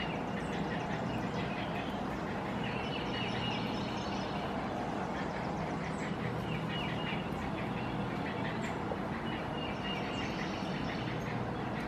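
Great blue heron chicks giving several bursts of rapid clacking calls, each about a second long, over a steady low hum.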